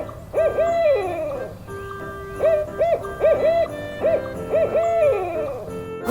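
Owl hooting: a run of short hoots, some in quick pairs, with a couple of longer notes that slide down in pitch.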